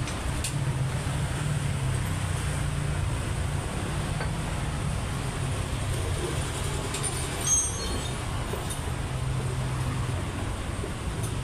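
Steady low mechanical hum with a few light metallic clinks; the clearest, a short jingle, comes about seven and a half seconds in.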